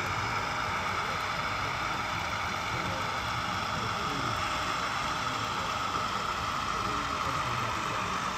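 Steady background noise of a crowded exhibition hall: indistinct chatter over a continuous hum.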